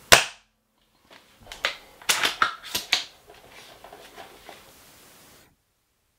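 A single sharp shot from a spring-powered bolt-action airsoft sniper rifle firing a BB through a chronograph. About a second later comes a run of metallic clicks and rattles as the bolt is worked to chamber the next BB, then the sound cuts off suddenly near the end.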